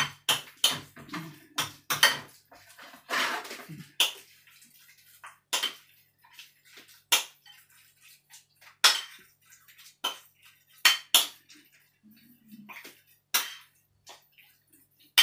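A metal spoon clinking and scraping against a ceramic bowl while mixing a thick minced meat mixture: irregular sharp knocks, roughly one or two a second.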